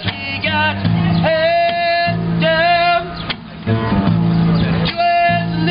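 Music: a singer holding long, wavering notes over a steady low accompaniment, with short breaks between phrases.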